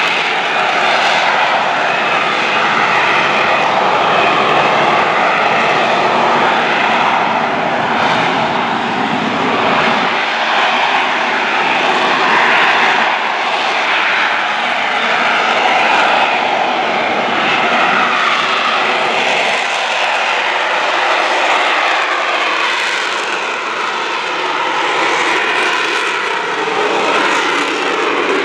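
AV-8B Harrier II's Rolls-Royce Pegasus turbofan running loud and steady, a continuous rushing jet noise that eases slightly a little past twenty seconds in.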